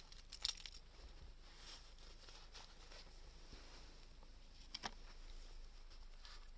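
A few light clicks and taps over faint room hiss. There are two close together about half a second in and two more just before five seconds.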